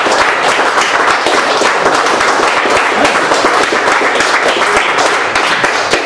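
Audience applauding: many hands clapping at once in a dense, steady patter.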